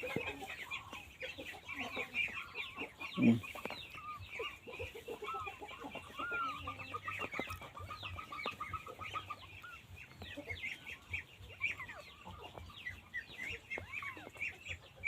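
Many short, high calls from small animals overlapping throughout, with a quick, even run of repeated calls in the middle and a lower call about three seconds in.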